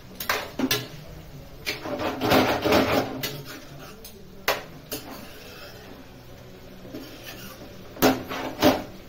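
A spoon scraping and knocking against a metal frying pan while chicken pieces in sauce are stirred. There are scattered clinks, a busier run of scraping about two to three seconds in, and two sharper knocks near the end.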